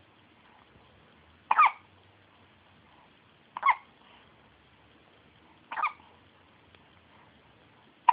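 Baby hiccuping: three short, sharp hiccups about two seconds apart, each a little softer, with another just at the end.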